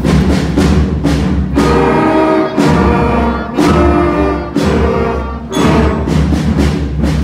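Fifth-grade school band of woodwinds, percussion and acoustic guitars playing loud accented chords with drum hits, about once a second.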